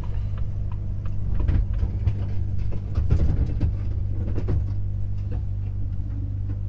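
Truck's diesel engine droning steadily while driving, heard from inside the cab, with road rumble underneath.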